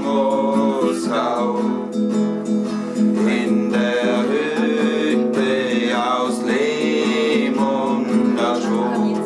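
Nylon-string classical guitar strummed and picked in a slow folk-song accompaniment, with a man's voice singing the melody in drawn-out phrases.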